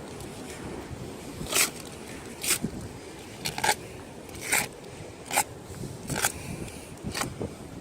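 Rough scraping strokes, seven in a row about a second apart: debris being swept or brushed off a grave by hand.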